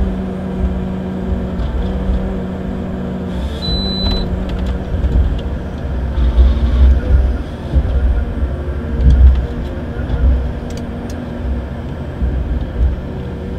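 Komatsu forestry harvester heard from inside its cab: the engine and hydraulics run with a steady hum, over a low rumble that swells several times as the boom and harvester head work.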